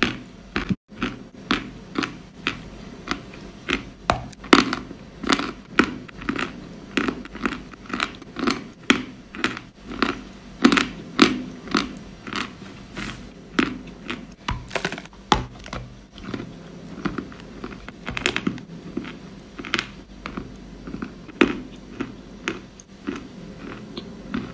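Close-up ASMR chewing of a cookie in chocolate cream: crisp crunches about two a second.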